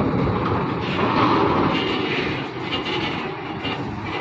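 Heavy Volvo 6x6 tractor truck's diesel engine running as it slowly hauls a loaded low-bed trailer past, a steady dense rumble.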